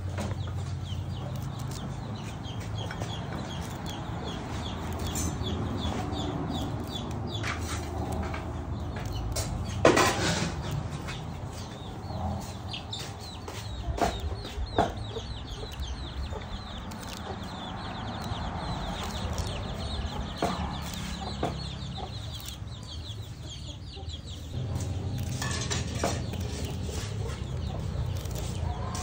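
Moringa sprigs being handled and their leaves stripped into a plastic bowl: soft rustling with a few sharp snaps about ten, fourteen and fifteen seconds in. Under it a steady low hum, and a bird calling in short repeated notes during the first ten seconds.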